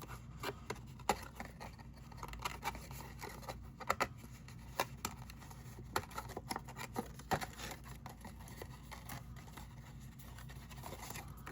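Cardstock being handled and slotted together: scattered light taps, rustles and scrapes of paper pieces being fitted into slots.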